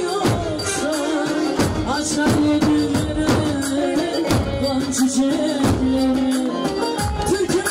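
Live Turkish folk dance music: davul bass drums beating under a held, wavering melody line.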